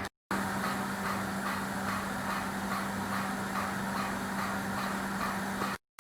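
Vapormatt Profelis bandsaw-blade wet blast machine running: a steady hum over a hiss, with a soft pulsing about three times a second. The sound starts just after the beginning and cuts off abruptly near the end.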